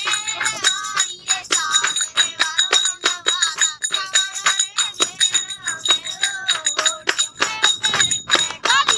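Rajasthani folk song: a high voice singing a winding melody over fast, rhythmic jingling and clacking hand percussion.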